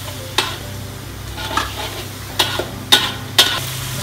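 A metal spatula stirs and scrapes through curry paste sizzling in oil in a steel wok, with a few sharp clacks of the spatula against the wok, most in the second half. The paste is frying down until the oil separates.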